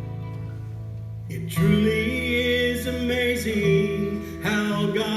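Acoustic string-band intro to a gospel song: a held chord fades for about a second and a half, then the band comes in louder, with a fiddle melody over plucked banjo and guitar.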